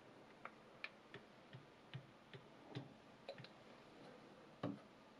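Light, irregular clicks and taps, about ten, from a whetstone holder on the guide rod of a guided knife sharpener being handled and set against a clamped chef's knife, one louder knock near the end.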